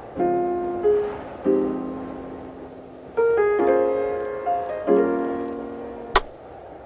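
Background music: soft chords struck every second or two, each left to fade away, with a short sharp hit near the end.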